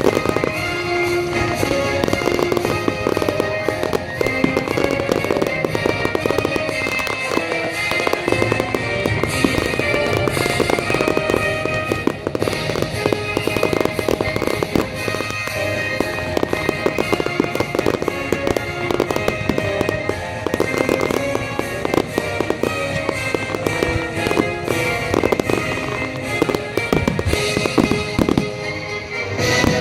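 Fireworks bursting and crackling in rapid, dense succession over a musical soundtrack playing continuously.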